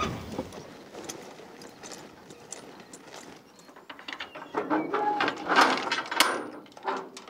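Clicks and metallic clanks of a stock trailer's rear gate and latch being handled. They come sparsely at first, then in a busier cluster a little past halfway.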